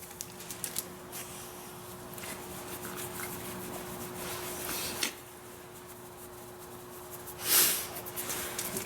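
A dog moving about and being handled: soft rubbing and rustling with small clicks, over a steady low hum. A short loud hiss comes about three-quarters of the way through.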